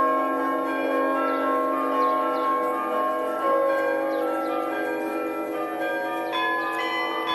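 Russian Orthodox monastery bells rung in a peal (zvon): several bells of different pitches struck in turn, their tones overlapping and ringing on. A fresh strike of the higher bells comes about six seconds in.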